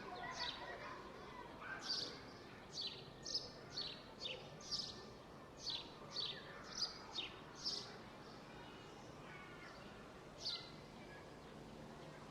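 Bird giving short, high chirps that slide quickly downward, many in quick succession from about two to eight seconds in and one more near the end, over a steady low background hum.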